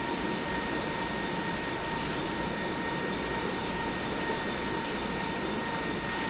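Freight train running steadily, with a constant high-pitched tone over the rumble.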